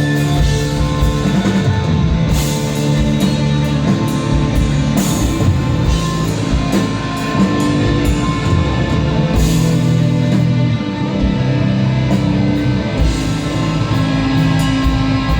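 Live instrumental desert rock band playing loudly: electric guitar and bass holding sustained notes over a drum kit, with cymbal hits about two and a half, five and nine and a half seconds in.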